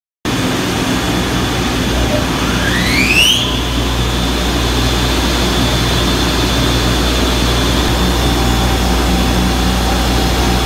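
Industrial pump room machinery, a vertical multistage centrifugal pump and its electric motor among other plant, running with a loud, steady hum. About two seconds in, a rising whine climbs for a second or so and then levels off into a steady high tone.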